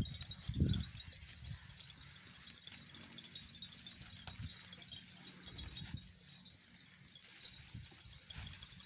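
Goat pen sounds: a few low thuds and shuffles of goats moving about, the loudest about half a second in, over a steady high chirping of insects.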